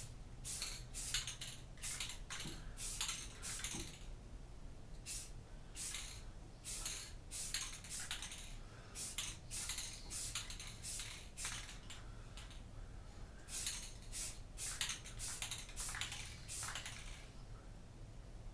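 Aerosol spray-paint can sprayed in many short hissing bursts, roughly one or two a second, as a bike fork is painted. The bursts stop about a second before the end.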